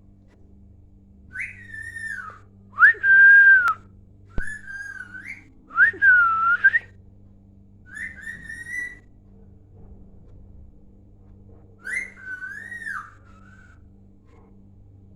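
Pet parrot whistling: about six short whistled phrases with sliding, wavering pitch, separated by pauses, the loudest about three and six seconds in.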